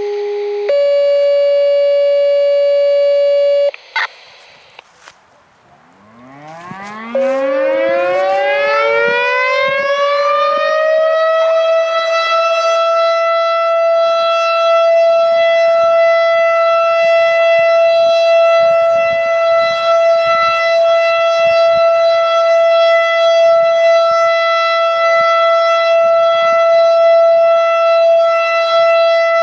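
Federal Signal STH-10A outdoor warning siren test: after a few seconds of steady tones that cut off sharply, the siren winds up from a low growl, rising in pitch for about six seconds, then holds a steady, loud single-tone wail.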